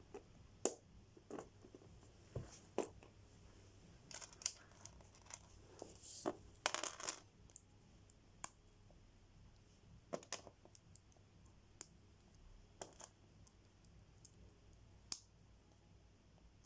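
Lego pieces being handled: irregular light clicks and taps of small plastic parts, with a brief rustle about six to seven seconds in.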